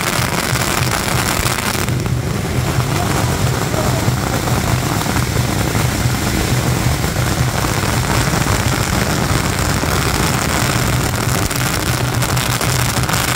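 A long string of firecrackers going off in one unbroken, rapid crackle.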